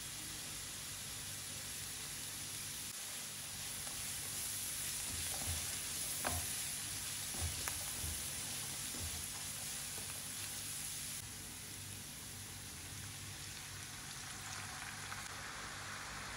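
Diced capsicum, carrot and sweet corn sizzling steadily as they fry in oil in a frying pan. Midway there are a few light knocks of a silicone spatula stirring them against the pan.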